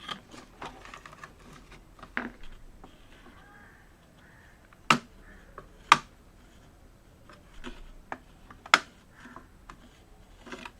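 Light plastic clicks and ticks from a laptop's plastic top cover being pried up with a flathead screwdriver, its plastic studs being released, with three louder sharp snaps about five, six and nearly nine seconds in.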